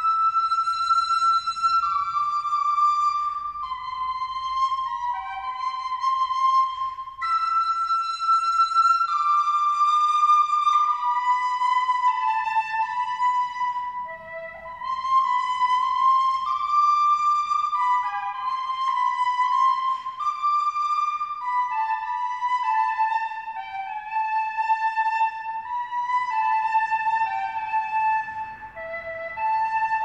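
Music: a slow melody of long held notes on a flute-like wind instrument.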